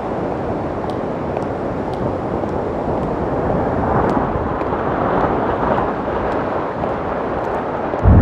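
A dense, steady rumble of noise with no clear pitch, swelling slightly around the middle, with a few faint scattered ticks above it.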